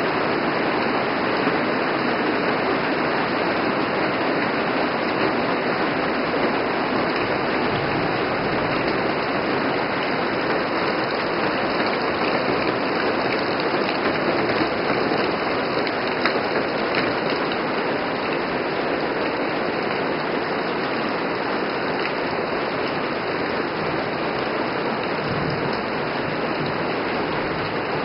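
Heavy rain falling steadily in a rain storm, a dense, even hiss with no let-up.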